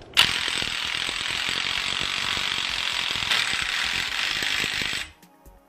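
Cordless impact wrench hammering the 32 mm axle nut onto the CV axle for about five seconds in one long burst of rapid impacts, cutting off abruptly near the end. The nut is being run down snug before it is torqued.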